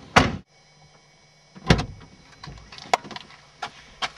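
Car door being handled: a heavy thump just after the start and another about a second and a half later, then a few short sharp clicks.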